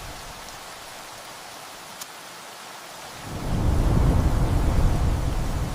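Steady rain hissing; about three seconds in, a deep rumble of thunder swells up and becomes the loudest sound.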